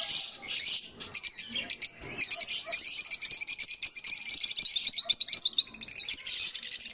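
African lovebirds chattering: a dense, continuous run of rapid high-pitched chirps and squeaks, with brief lulls about one and two seconds in.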